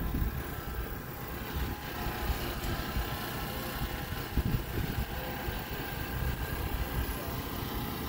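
Steady mechanical hum of running machinery, with an uneven low rumble of wind on the microphone.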